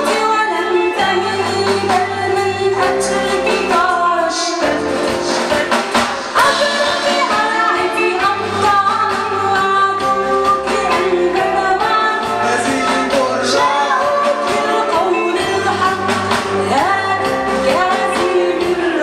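A woman sings a song live with a rock band: electric guitar, bass guitar and drums.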